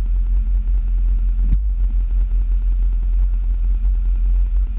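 1961 VW Bus's air-cooled flat-four engine running while the bus is on the move, a steady low drone. A single sharp click comes about a second and a half in.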